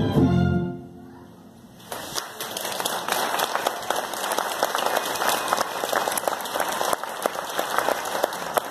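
Keyboard-accompanied music ends within the first second, and after a short pause an audience breaks into applause about two seconds in, many hands clapping steadily.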